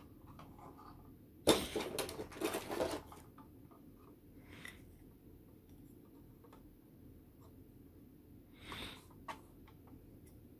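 Hard plastic model-kit parts being handled: a burst of clattering and rubbing about a second and a half in, light clicks and taps after it, and a shorter rustle near the end.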